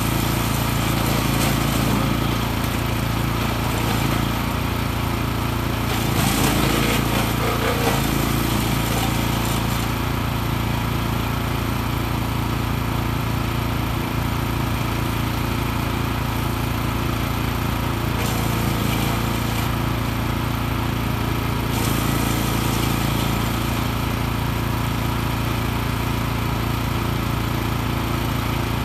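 Petrol engine of a 14 hp wood chipper running steadily at working speed, with a louder crackling stretch about six to eight seconds in as branches go through the chipper.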